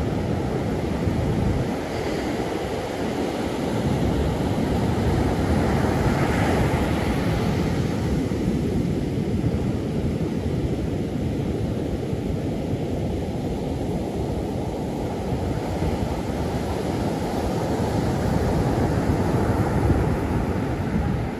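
Ocean surf breaking and washing up a beach, a steady rush that swells and eases, with wind rumbling on the microphone.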